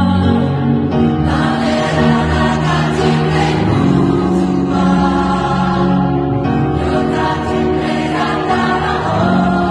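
Choir, mostly women's voices, singing a Nepali song in held, sustained notes.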